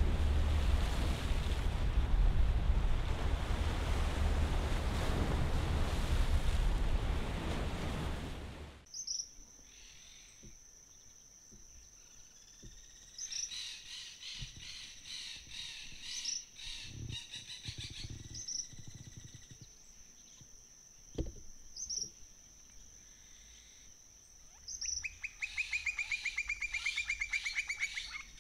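Wind and waves on open sea, a full rushing noise with low rumble, cut off suddenly about nine seconds in. Then a quiet rural scene: a steady high insect drone that restarts every few seconds, birds chirping, and a fast trill near the end.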